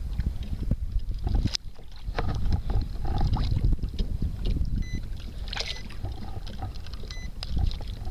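Wind buffeting the microphone over water sloshing against a kayak's hull, with a few sharp knocks and splashes.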